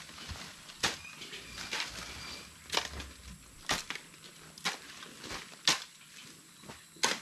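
Hoe and shovel blades striking the ground as soil is dug and moved to level it: a series of sharp strikes, about one a second.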